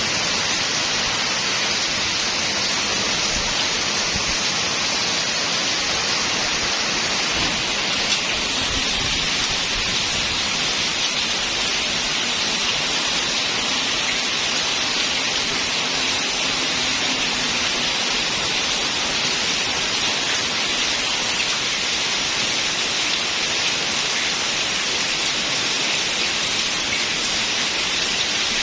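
Rain falling steadily, an even hiss with no letup.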